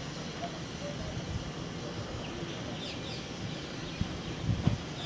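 Distant low rumble of a Boeing 737's jet engines at taxi power, with birds chirping over it. A few low thumps come about four seconds in.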